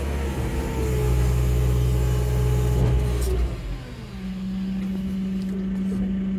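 JCB telehandler's diesel engine running with raised revs, heard from inside the cab. About three and a half seconds in the revs drop back and it settles to a lower, steadier hum with one steady tone.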